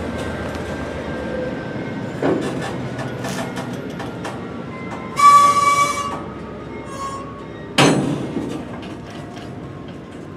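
Freight cars rolling slowly past, with a steady rumble and scattered clicks from the wheels. About five seconds in comes a short, loud, high-pitched wheel squeal, and just before eight seconds a single loud metallic clank.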